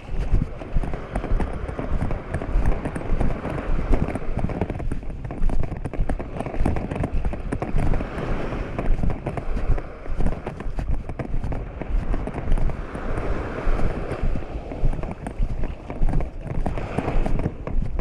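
Footsteps of a person walking on wet beach sand, a run of soft thuds over a steady low rumble and a wash of beach noise.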